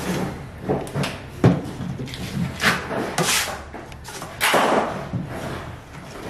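A steel taping knife scraping Durabond 90 setting compound off a mud board and spreading it onto the wall, in several separate scraping strokes.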